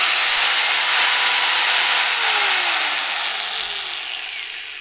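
Unbranded 4-inch angle grinder running with no disc fitted, a very loud high whine at full speed. About two seconds in it is switched off and winds down, its pitch falling and the sound fading away.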